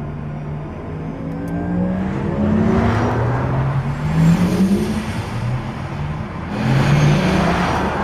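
A car rushing past, with tyre and wind noise swelling about three seconds in and again about seven seconds in, over a sequence of held low tones.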